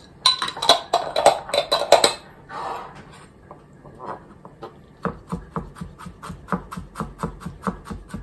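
Kitchen knife mincing fresh ginger on a plastic cutting board. A loud run of knocks and scrapes comes first as knife and ginger are handled. From about five seconds in, steady chops follow at about three a second.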